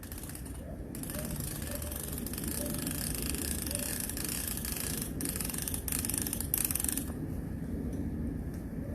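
Beach umbrella being opened: the runner sliding up the pole and the new canopy fabric rustling as the ribs spread, with mechanical scraping and clicking. A steady hiss of sliding and rustling starts about a second in and breaks off in short gaps near the end.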